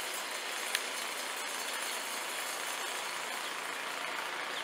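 Walk-behind snowblower engine running steadily with a buzzing hum, with one brief click about three-quarters of a second in.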